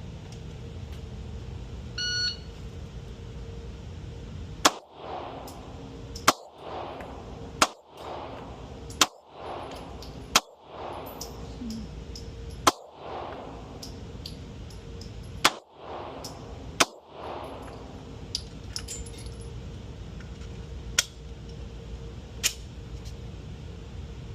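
A shot-timer start beep about two seconds in, then eight 9 mm shots from a Glock 43X pistol fired at an uneven pace of one every one to three seconds, each followed by a brief ring. A few fainter cracks follow near the end.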